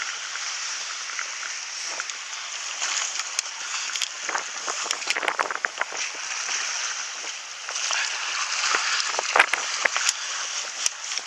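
Seawater sloshing and splashing at the rocky shoreline as a landing net is worked in the water around a hooked squid. Sharp splashes come in two bunches, the loudest about nine and a half seconds in.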